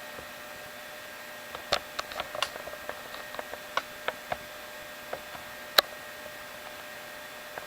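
A run of irregular light clicks and ticks over a steady hiss and faint hum, the loudest click about six seconds in.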